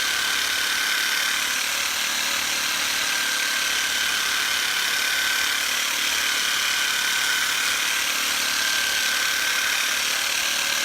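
Makita power drill used as a massage tool, running steadily with a constant high whine.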